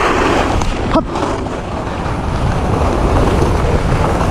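Skis scraping over hard, scratchy piste snow that is not powder, a steady rushing hiss with wind blowing over the microphone, and a brief squeak about a second in.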